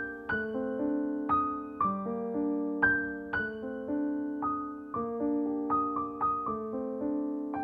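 Background piano music: a slow, gentle melody of single notes and chords, a new note struck about every half second, each fading out.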